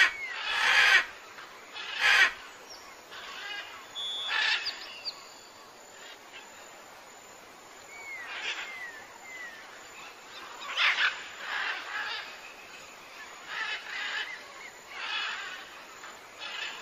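Birds calling: a series of short, harsh calls one to three seconds apart, loudest in the first couple of seconds, with a few brief whistled chirps that glide downward between them.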